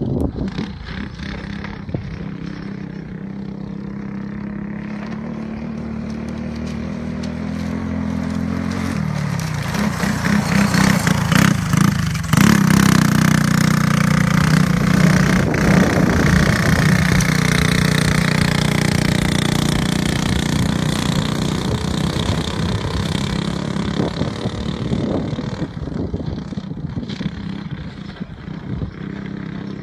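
Small go-kart engine running on the track, getting louder about ten seconds in as the kart comes near, then slowly fading as it moves away.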